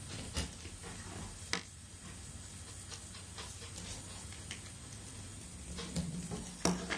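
Faint rustling and a few light clicks as thin insulated hookup wires are handled and laid out on a wooden table.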